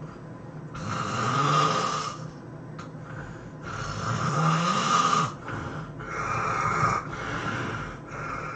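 A person snoring loudly, with long snores of over a second each coming every two to three seconds. The first two snores carry a pitched tone that glides upward.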